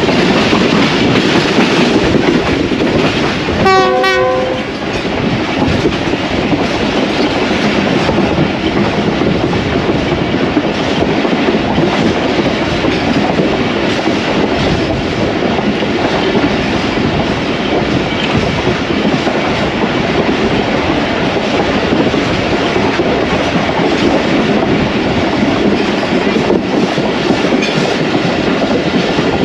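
Passenger train running at speed, heard from on board: a steady rush of wheels on the rails with clickety-clack. A few seconds in, a train horn sounds once for about a second.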